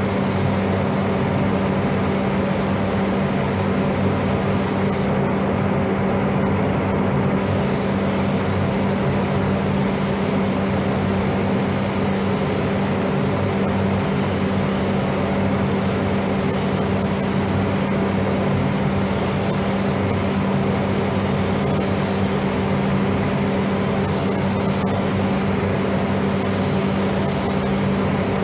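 A paint spray booth's ventilation fans running with a steady drone and hum, under the hiss of a compressed-air paint spray gun; the hiss stops for a couple of seconds about five seconds in, then resumes.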